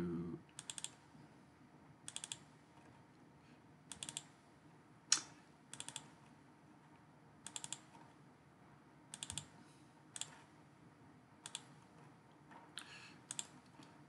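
Computer mouse clicking, in small quick groups of two or three about every second or two, like double-clicks opening folders one after another.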